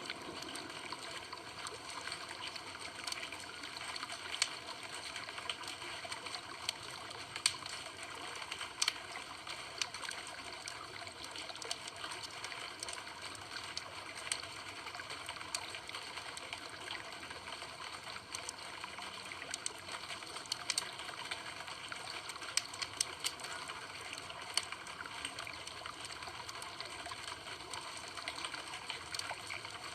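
Campfire crackling: a steady hiss with irregular sharp pops and snaps.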